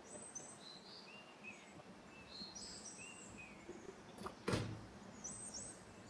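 Small birds chirping in short, repeated high-pitched phrases over a faint background hiss, with a single sharp knock about four and a half seconds in.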